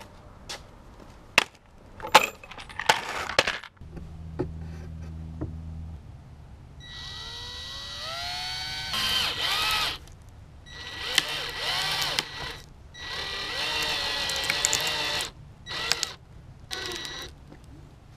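Cordless drill driving into the wooden back brace of a couch to reattach a broken beam, running in several bursts, the first rising in pitch as the motor spins up. A few sharp knocks come in the first few seconds.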